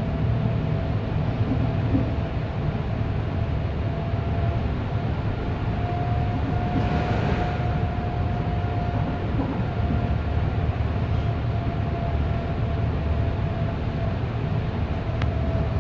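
Berlin U-Bahn A3L71 small-profile train running, heard from inside the passenger car: a steady low rumble of wheels on rail with a thin steady whine over it. A brief rush of noise comes about seven seconds in, and a single click near the end.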